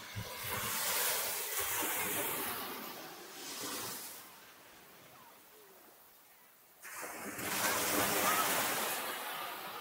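Small sea waves breaking on a sandy beach. The surf noise swells and fades, drops to a lull for a couple of seconds in the middle, and rises again abruptly.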